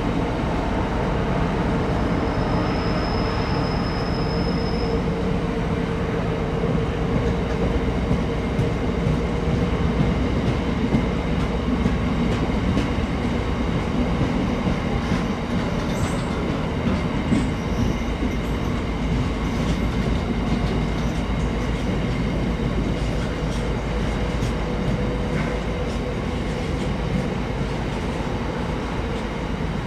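Freight train rolling past: a steady rumble and rattle of wagons on the rails, with a brief faint high squeal a few seconds in and light wheel clicks later on.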